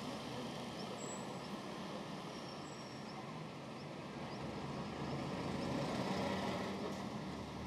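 City road traffic passing steadily, with one vehicle growing louder around six seconds in before fading.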